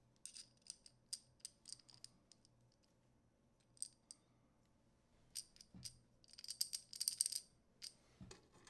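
Small metal M-LOK screws and mount hardware clicking and clinking faintly as they are handled and fitted into a light mount, a scatter of separate light ticks with a denser run of clinking a little after the middle.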